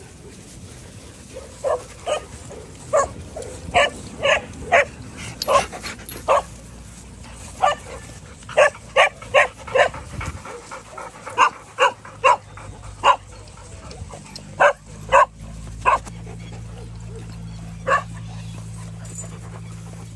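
Dogs barking in short, sharp barks, many of them in quick runs of two to four, with pauses of a second or so between runs. A low steady hum sits underneath from about fourteen seconds in.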